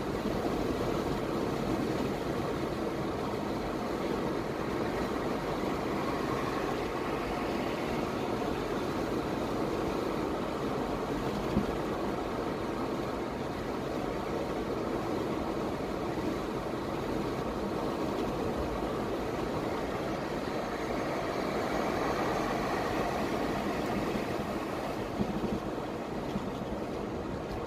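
Steady road and engine noise heard inside a car's cabin while driving along a highway, with one brief tap about halfway through.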